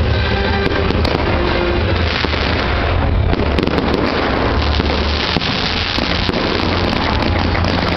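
Aerial fireworks bursting and crackling in a dense, continuous barrage, with music playing underneath.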